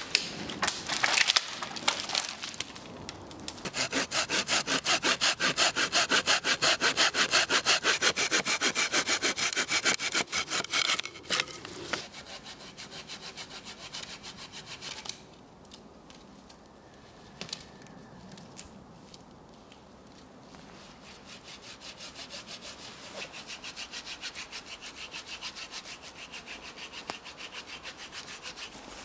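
Dead wood cracking a few times near the start, then a hand saw cutting through deadwood logs in fast, even strokes for several seconds. After a quieter pause, the strokes come back fainter near the end.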